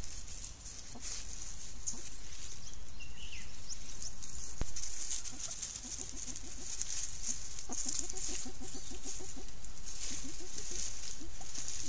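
Banded mongooses giving contact calls while foraging: runs of short, low calls at several a second, mostly in the second half.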